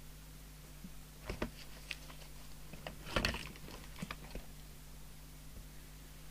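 Paper sheets being handled and shifted on a desk: a scatter of light clicks and taps, with a louder rustle and knock about three seconds in.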